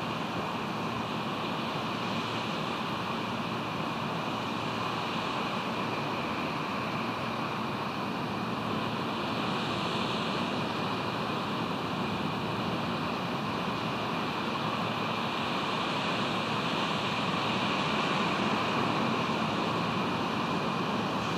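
Steady rush of ocean surf mixed with wind noise, unchanging throughout.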